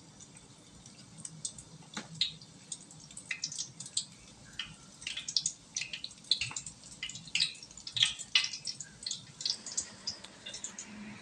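Hot oil in a wide frying pan crackling and spitting in irregular sharp pops as raw bomboloni dough balls are dropped in to deep-fry. The pops are thickest in the middle and thin out near the end.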